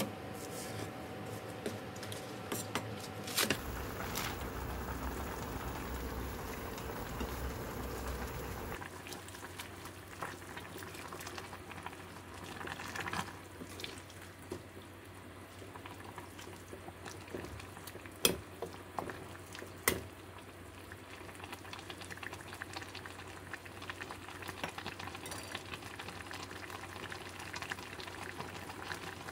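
Liquid boiling in a pot on the stove, a steady bubbling, with two sharp clicks about two thirds of the way through.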